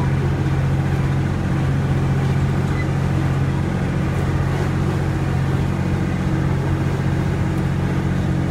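The ride train's engine running at a steady pace as the train rolls along, a constant low drone with a rumbling haze over it, heard from on board.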